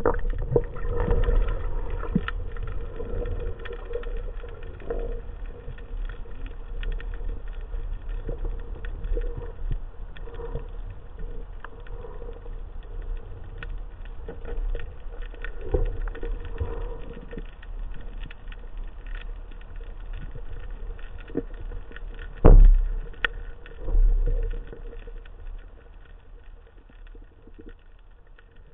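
Underwater noise picked up by a camera mounted on a speargun during a dive: a steady low rumble of water movement with scattered clicks and crackles throughout, and two heavier thumps about two-thirds of the way through.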